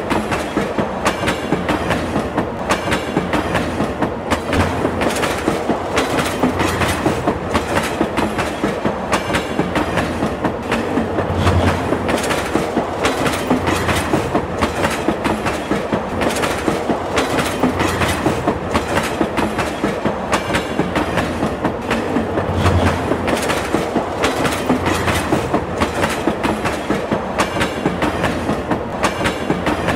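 Train wheels running over rail joints in a steady, regular clickety-clack.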